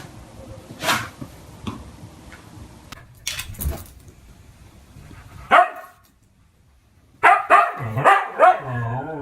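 A dog barking: one loud bark about halfway through, then a quick run of barks near the end, with a few knocks before.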